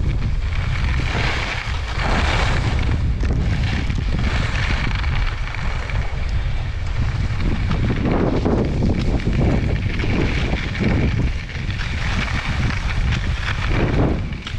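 Wind rumbling on an action camera's microphone during a downhill ski run, with the skis hissing and scraping over groomed snow in swells that come and go with the turns.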